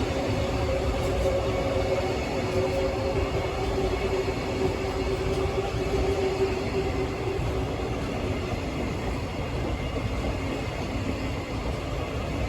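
An EF210 electric locomotive hauling a freight train of spoil wagons, running along the rails with a steady rumble. A steady pitched whine fades out about seven seconds in, and the train sound slowly grows quieter.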